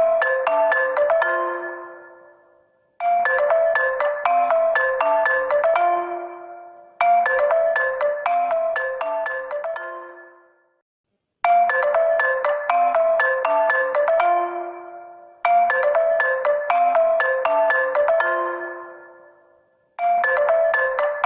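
HONOR phone ringtone: a short, bright melody of quick struck notes that rings out and fades, repeating about every four seconds.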